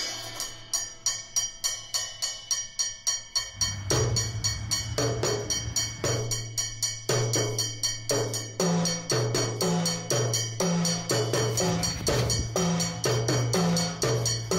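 Background music with a quick, steady percussive beat over a low bass line, which comes in about four seconds in.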